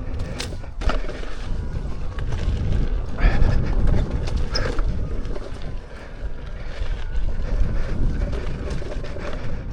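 Wind buffeting the microphone while riding an electric unicycle over a rough dirt trail, with a few sharp knocks and rattles from the ride.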